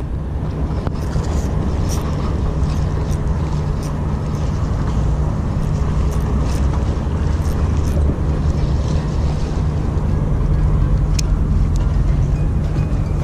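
Wind buffeting the microphone in a steady low rumble, with faint scattered ticks over it.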